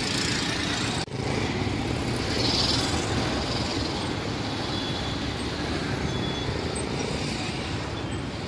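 Street traffic noise with motorcycle and car engines running, a steady rumble, briefly cut off about a second in.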